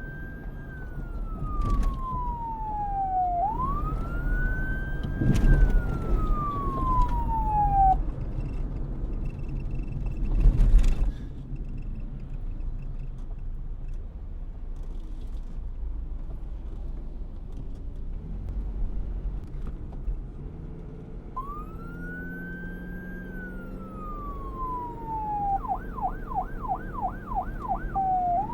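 Police siren in wail mode, rising and falling slowly twice, then stopping for about thirteen seconds while a steady low engine rumble continues and a loud burst of rushing noise comes about ten seconds in. The wail returns once more and switches to a fast yelp, about four sweeps a second, near the end.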